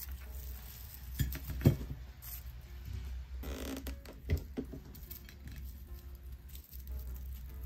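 A wreath of dried flowers and cedar sprigs being handled: light rustling and crackling of the dry flowers and foliage, with a few short knocks, the sharpest a little under two seconds in and another about four seconds in as the wreath meets the ceramic plate.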